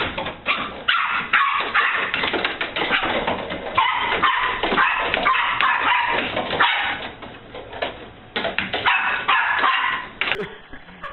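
A dog barking and yipping over and over in short, high calls, with some whimpering between them.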